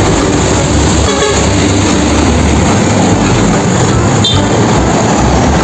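A heavy vehicle running loudly, a steady engine rumble mixed with road noise.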